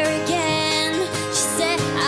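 Music: a pop-rock song performed live, with a singer's wavering held notes over band accompaniment.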